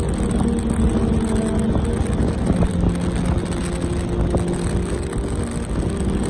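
An engine running steadily with a low rumble, its pitch holding roughly level.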